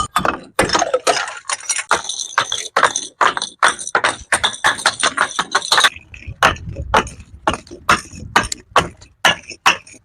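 A fast run of sharp knocks and crunches, about three a second, some with a short glassy ring: crunchy things being struck and crushed.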